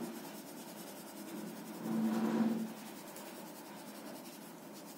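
Soft graphite sketch pencil scratching on paper in short shading strokes. A brief low hum rises over it about two seconds in and fades under a second later.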